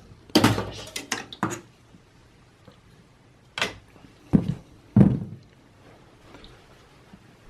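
A rear system fan being unclipped and pulled out of a Dell Precision 3620 tower's chassis: a quick run of clicks and knocks in the first second and a half, then three separate knocks a few seconds in.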